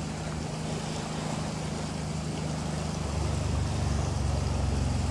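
Steady low motor hum under a faint hiss, growing louder and deeper about three seconds in.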